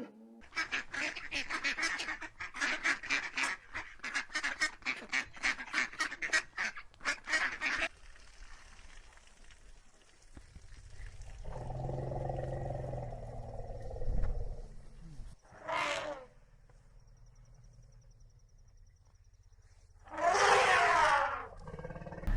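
Waterfowl calling: a rapid, repeated run of harsh calls, about three a second, for the first eight seconds, then two single calls further apart later on.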